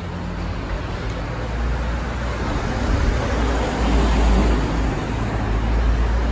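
Street traffic noise: a steady low motor-vehicle engine rumble under a wash of road noise, growing louder about three seconds in.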